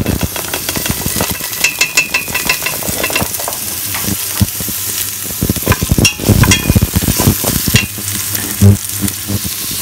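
Chopped onion tipped from a plastic cutting board into hot olive oil and garlic in a stainless steel pressure cooker, sizzling, while a wooden spatula stirs and scrapes the bottom of the pot in many quick irregular strokes.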